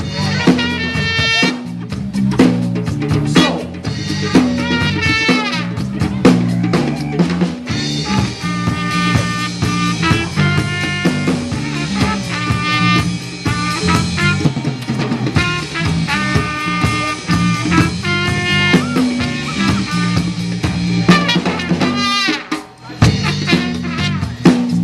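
Live band playing an instrumental passage: a drum-kit groove with snare and rimshot hits over a steady bass line, and a lead instrument repeating short melodic phrases. The band drops out briefly near the end, then comes back in.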